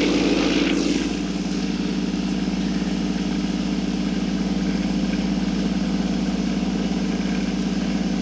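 Frankford Arsenal vibratory case tumbler running with a steady electric hum, the cleaning media churning in its bowl under a clear lid.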